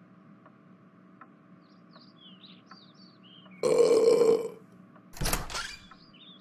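Two deliberate burps about a second and a half apart: the first long and pitched, the second shorter and deeper. Faint chirping and a faint regular ticking sit behind them.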